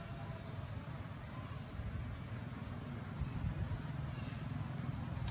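An insect calling as one thin, steady high tone, over a low, continuous rumble.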